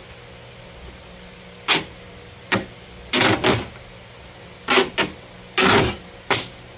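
Duct tape being pulled off the roll under tension in about six short, loud rips, as it is wrapped around a wire stretcher and plywood board.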